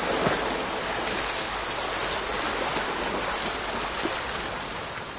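Steady hiss of rain falling on open water, with a few faint drop splashes, growing fainter toward the end.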